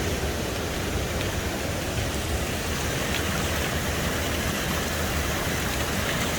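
Waterfall rushing steadily, swollen and flowing hard with heavy rain.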